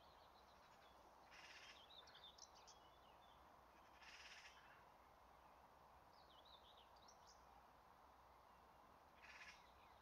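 Very faint outdoor ambience with distant songbirds chirping now and then, and three short buzzy bursts: about a second and a half in, about four seconds in, and near the end.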